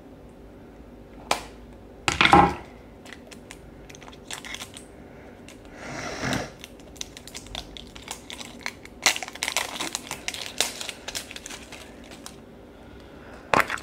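Hands rummaging through blind-bag toy packets in a plastic basket: crinkling and rustling packaging, with a sharp click about a second in and a dense run of crinkles near the end.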